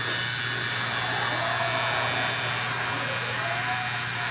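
Electric hair clippers running with a steady buzz during a haircut.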